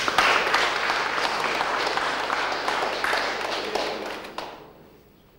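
Audience applauding: a dense patter of clapping from many hands, which dies away about four and a half seconds in.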